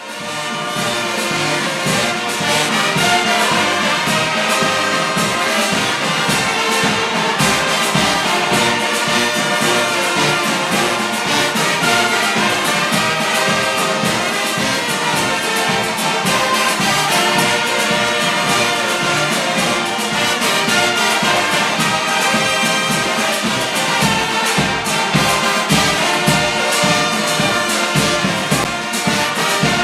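Brass band of trumpets and trombones playing over a steady bass-drum beat. It strikes up at the very start and plays on at full strength.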